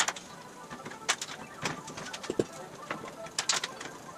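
Irregular metallic taps and clicks from an aluminum hood panel being handled and fitted against a steel car frame, with a short squeak of metal on metal about two and a half seconds in and a quick cluster of clicks near the end.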